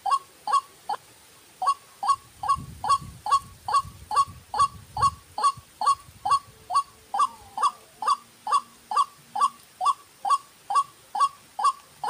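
White-breasted waterhen (ruak-ruak) calling: a steady run of short, harsh, downward-sliding notes repeated about three times a second, with one brief pause about a second in.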